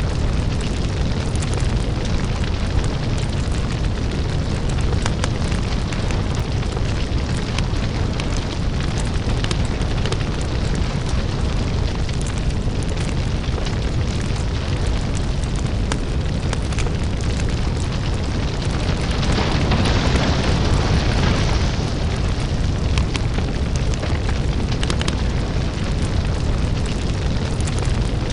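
Crackling lava-fire ambience: a steady deep rumble under dense, continuous crackling and popping, swelling briefly into a brighter hiss about two-thirds of the way through.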